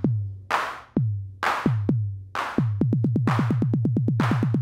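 A drum-machine beat from the TX-6 field mixer's drum engines: a kick drum with a falling pitch alternating with clap hits. About two and a half seconds in, the kick turns into a fast roll of about eight hits a second while the claps carry on.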